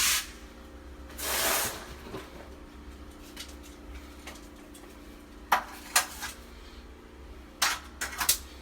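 Plastic water pipe and fittings being handled during gluing and fitting: a brief scraping rush about a second in, then sharp clicks and knocks around the middle and again near the end, over a steady low hum.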